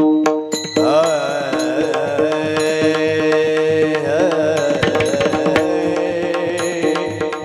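Varkari kirtan chal: a singer holds a high, sliding line that enters about a second in, over a steady drone and repeated mridang strokes.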